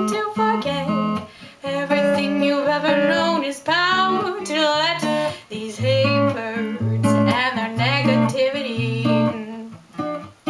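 Acoustic guitar strummed under a woman's singing voice, the vocal line gliding between notes in phrases with short breaks.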